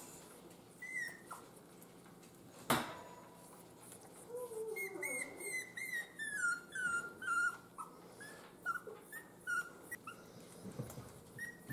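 Miniature schnauzer puppies whimpering: a run of many short, high squeaks, most falling in pitch, starting about four seconds in. A single sharp click comes a little before them.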